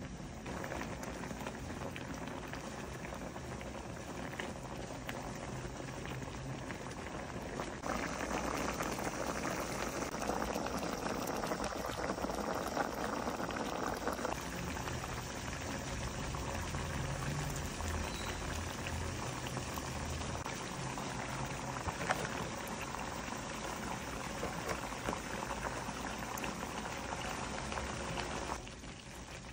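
Coconut milk bubbling at a boil in a cooking pan, a steady crackling bubbling that grows louder about a quarter of the way in and drops off just before the end.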